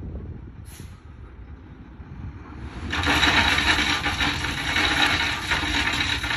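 Dump truck's engine rumbling low while its raised bed unloads crushed rock. About three seconds in, a much louder rush of rock sliding and rattling out of the bed begins and keeps on.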